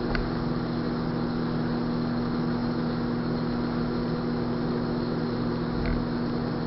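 Steady background hum holding one fixed tone, unchanging throughout, with a faint click just after the start.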